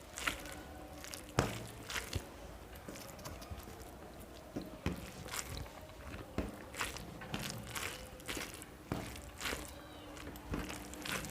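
Eating sounds: chewing of a meal of rice and vegetables, with many short scattered clicks and taps.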